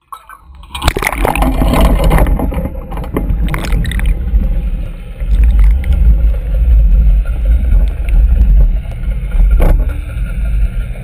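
Deep, muffled underwater rumble of water around a boat's hull, with gurgling and a few sharp knocks. It starts about a second in.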